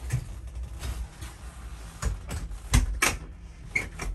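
A ship's cabin door being unlocked with a key card and opened: a string of sharp clicks and knocks from the lock and door, the loudest in the second half, over a steady low hum.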